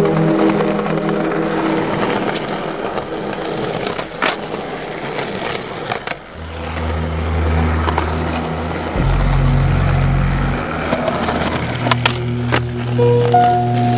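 Skateboard wheels rolling over concrete pavement, with sharp clacks of the board hitting the ground a few times, two close together near the end as the skater pops the board. Under it runs a music track with held bass notes.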